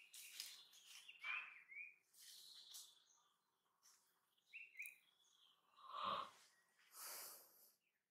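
Birds chirping in short, downward-sliding notes, with a few soft noise bursts in between, the strongest about six seconds in.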